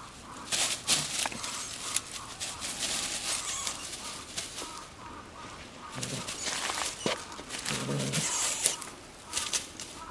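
Dry straw mulch rustling and crackling in bursts as a cat paws and pounces through it after a mole.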